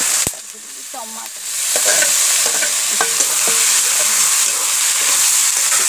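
Onion and ginger-garlic masala sizzling in hot oil in a metal kadai; chopped tomatoes go in near the start, the sizzle drops sharply for about a second, then picks back up as a metal ladle stirs with short scraping clicks.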